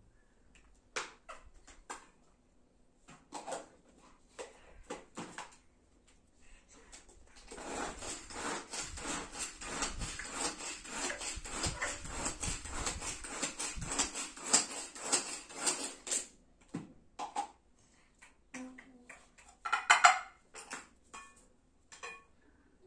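A knife scraping out the inside of a tomato for stuffing: a rapid run of scraping strokes lasting about nine seconds, with scattered clicks and knocks of utensils and dishes around it. A short, sharp clatter comes about three seconds before the end.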